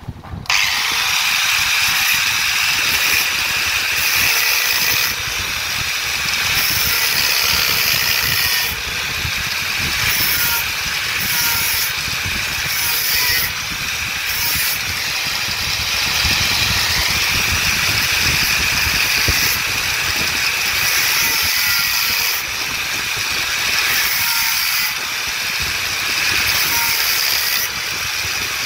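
Angle grinder starting up and grinding into the steel bit locked in a demolition hammer's tool holder: a loud, steady whine over grinding noise, which dips in pitch a little past halfway as the disc bites.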